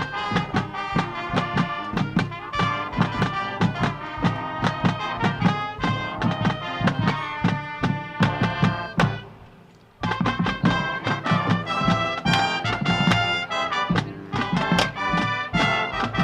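High school marching band playing, brass and drums together, with trumpets and trombones carrying the lines. About nine seconds in the band fades into a brief pause, then comes back in at full volume.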